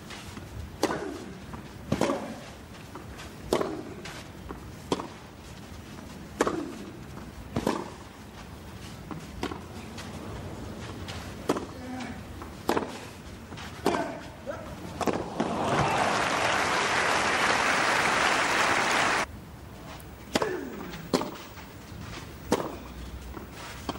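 Tennis racket strikes on the ball in a long baseline rally on clay, a crisp hit about every second and a half. A burst of crowd applause about 16 seconds in cuts off abruptly after about three seconds, and the hits of the next rally follow.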